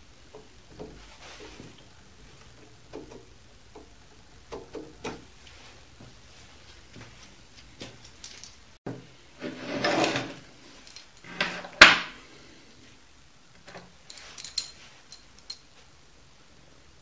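Small metal parts being handled: scattered light clicks, then a rattling scrape lasting about a second and a sharp metal clink a couple of seconds later, the loudest sound, followed by a few faint ticks as steel pieces are picked up and set down.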